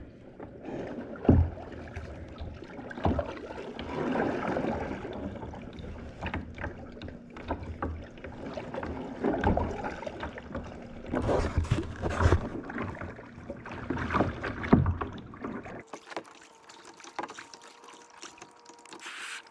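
Kayak paddling: paddle strokes splashing in the water, with occasional sharp knocks. About four seconds before the end the sound changes abruptly to a quieter stretch with a faint steady hum.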